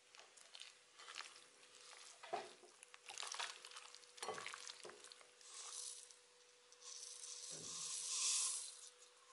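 Wet squelching and rustling of hands mixing thinly sliced beef into marinade in a bowl, in several short bouts with soft knocks. Near the end a longer hiss as sesame seeds pour onto the meat.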